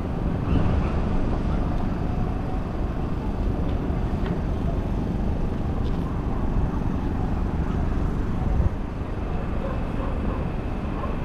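Steady low rumbling background noise of a field recording, with a few faint clicks.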